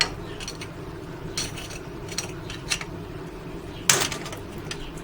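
Scattered clicks and knocks of a tool and the new light switch being worked into the wall switch box, with one louder knock about four seconds in.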